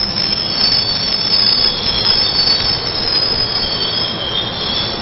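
NJ Transit bilevel commuter train slowing into a station stop, its wheels and brakes giving a high-pitched, wavering squeal over the steady rumble of the cars rolling past.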